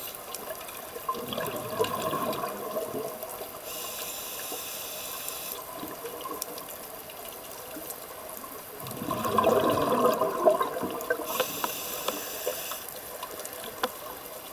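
Scuba breathing through a regulator heard underwater: two bursts of exhaled bubbles gurgling out, each followed by the hiss of an inhalation, in a slow cycle about eight seconds apart. The second exhalation is the louder.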